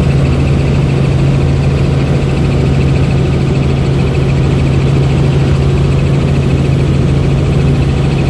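Helicopter turbine and rotor noise heard inside the cabin: a loud, steady drone with a strong low hum that holds unchanged throughout.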